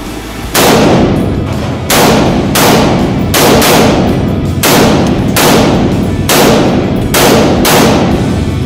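Nine single shots from an AR-15-style rifle fired one at a time at an uneven pace, roughly one a second, each followed by a long echo in an indoor shooting range.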